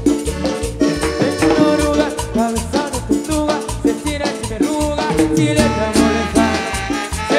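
Latin dance-band music playing an instrumental passage over a steady bass beat.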